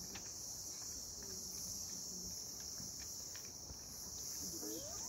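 Steady, high-pitched insect chorus, an even shrill buzz that does not let up, with a few faint clicks.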